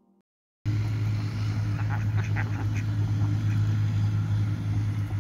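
Domestic ducks quacking a few times over a loud steady low hum, which sets in suddenly after a brief silence near the start.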